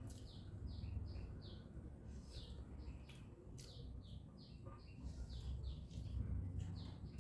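A small bird chirping in the background: runs of quick, short, high chirps that slide downward, several a second, in bursts with short gaps. A few soft clicks of chewing are scattered among them.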